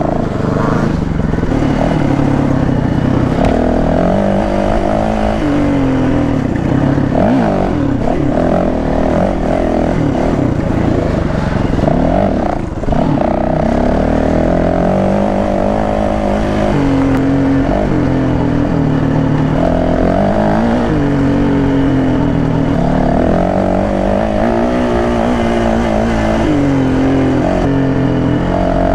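Yamaha WR450F dirt bike's single-cylinder four-stroke engine being ridden hard, its pitch repeatedly climbing and falling with the throttle and gear changes. The engine briefly drops off about thirteen seconds in.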